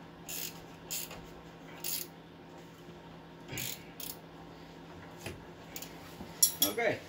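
Hand ratchet wrench clicking in short bursts as bolts on the wheel hub are run in by hand, with a few sharper, louder metal clicks near the end.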